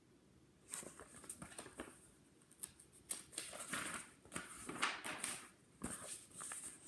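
Faint rustling and soft handling noises of a picture book's paper pages being turned, in several short bursts.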